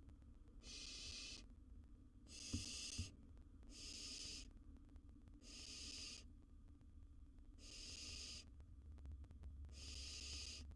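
Barn owl nestling giving harsh hissing calls, the 'snoring' call of a barn owl chick: six breathy hisses, each just under a second long, repeating about every two seconds.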